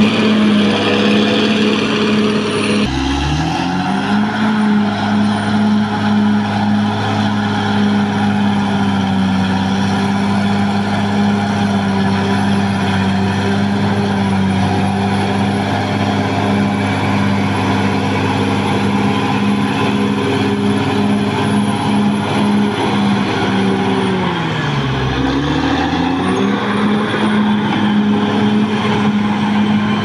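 Caterpillar D6R XL bulldozer's diesel engine running hard as the blade pushes wet soil. Its pitch drops and comes back up twice, about three seconds in and again near twenty-five seconds.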